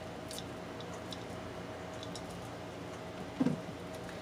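Spoon pressing soft ground-meat stuffing into a bell pepper: a low steady hum with faint scattered ticks, then one short, dull, squishy thud about three and a half seconds in.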